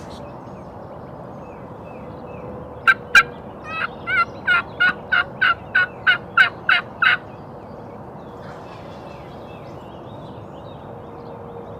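Hen turkey yelping: two sharp clucks, then a run of about ten yelps at roughly three a second, lasting about three seconds.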